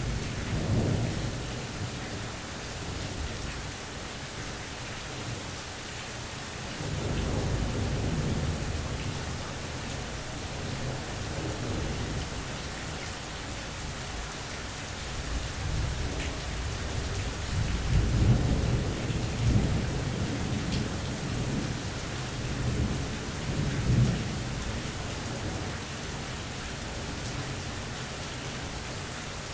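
Steady rain falling during a mild thunderstorm, with thunder rolling in several low rumbles: one right at the start, one about seven seconds in, a longer and louder roll peaking about eighteen seconds in, and a shorter one near twenty-four seconds.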